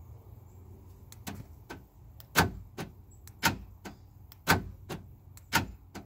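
Power door lock actuator in a 2012 Nissan Frontier door working the latch: four loud clacks about a second apart, with fainter clicks between them.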